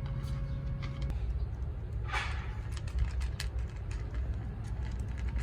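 A cat crunching dry kibble: many small sharp crunches over a steady low traffic rumble, with a brief rushing sound about two seconds in.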